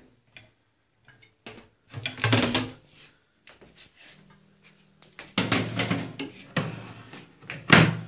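Knocks and clatters of a microwave door and a plate being handled. They are sparse at first and come thick and fast in the second half, with the loudest sharp knock near the end.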